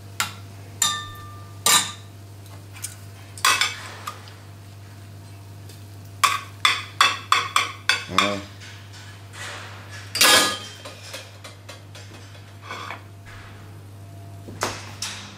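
Utensils clinking and knocking against dishes and a bowl while a romaine salad is being dressed. There is a quick run of taps about halfway through and a louder knock soon after, over a steady low hum.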